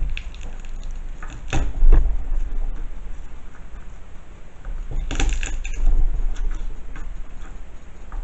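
Unpeeled garlic cloves crushed under the flat of a chef's knife on a cutting board: a few dull knocks and thuds, the loudest about two seconds in, and another cluster of knife-and-board clatter about five seconds in.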